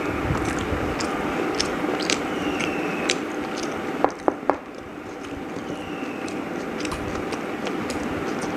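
A person eating chicken biryani, with scattered small chewing and biting clicks over a steady hum. Three quick clinks come close together about four seconds in.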